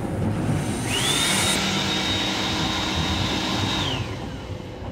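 Built-in hand dryer of a Metro-North M7 railcar's restroom sink unit blowing: a high motor whine rises about a second in, holds steady, and winds down near the end.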